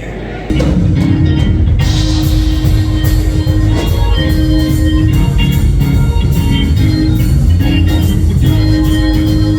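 Church band starting up suddenly about half a second in, an organ holding chords over drum kit and bass: the instrumental lead-in to a gospel song.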